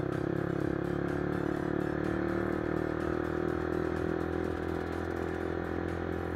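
Motorcycle engine running steadily while riding, a constant engine drone with road noise.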